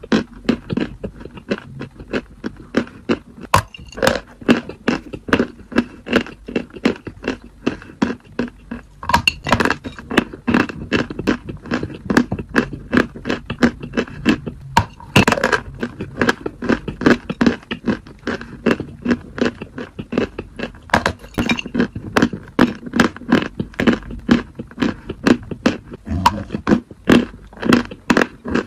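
Close-miked chewing of dry white chalk: a steady run of crisp crunches, two to three a second, with one louder crunch about halfway.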